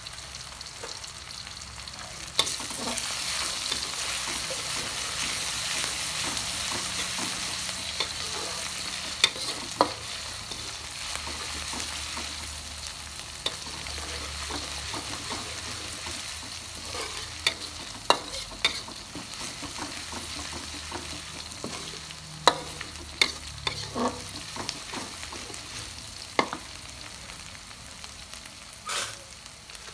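Minced seasoning paste frying in oil in a metal wok. The sizzle jumps louder a couple of seconds in and slowly eases off, while a spatula stirs and scrapes the pan, knocking against the wok now and then in sharp clicks.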